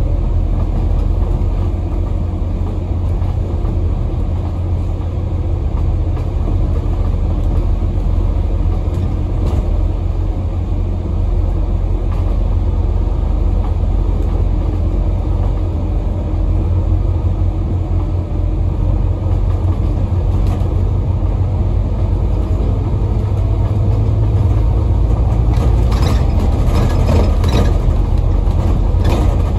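A Scania N250UD double-decker bus under way, heard from on board: its five-cylinder diesel engine runs steadily under road noise. The engine note grows stronger near the end, with a few rattles from the bus body.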